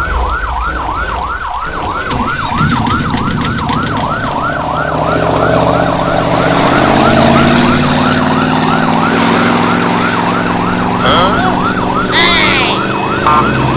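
Electronic yelp siren, a rising-and-falling tone repeating about four times a second, over a steady low motor hum. A few higher squeaky glides come in near the end.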